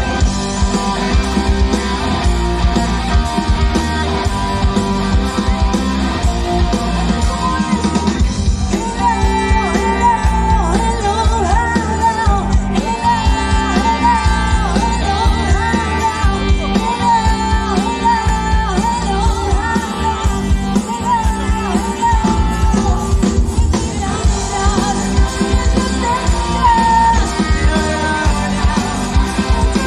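Live party band playing a song through the stage PA, with singing over a steady drum beat; a wavering lead melody stands out from about eight seconds in.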